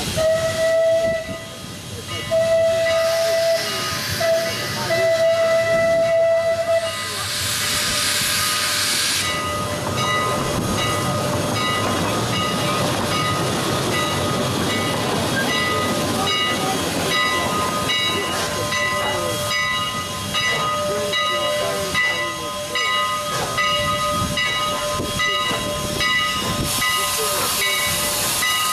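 Canadian National 89, a 2-6-0 Mogul steam locomotive, sounding its chime whistle in three blasts, a short one and then two longer ones, followed by a loud burst of steam hiss. Steady steam hissing goes on after that, with a fainter held whistle-like tone under it and more hiss near the end.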